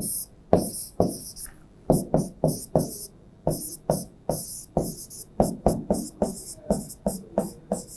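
Pen tapping and stroking on an interactive display board as an equation is hand-written: an uneven run of short knocks, each with a brief hiss, about three a second and coming faster in the second half.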